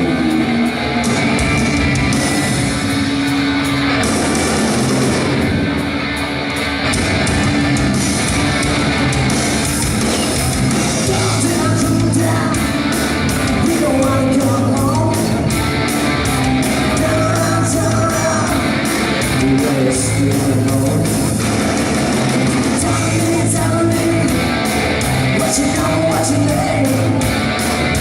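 Live rock band playing loud and steady: distorted electric guitar, bass and a driving drum beat.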